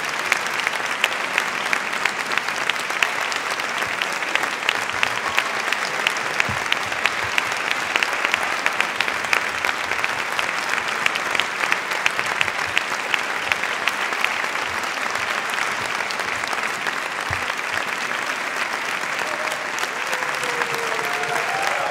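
Concert audience applauding: steady, sustained clapping from many hands.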